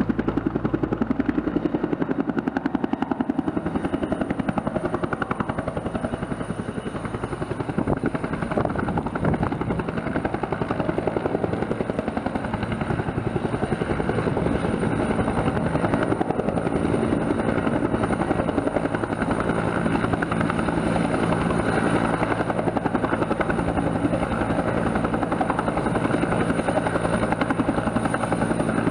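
Bell 212 helicopter running steadily: the rapid, even chop of its two-bladed main rotor over the continuous high whine of its twin turboshaft engines.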